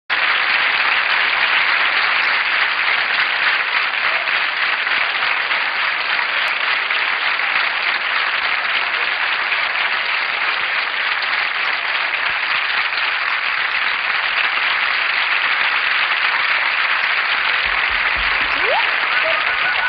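Studio audience applauding steadily, a dense sustained clapping from a large crowd.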